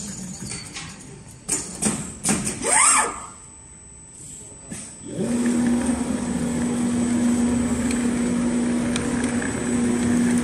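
Richpeace automatic furniture sewing machine running. A few sharp clicks and a short rising whine, then a quieter pause of about two seconds. About halfway through the machine starts up again with a steady hum as the sewing head travels across the panel.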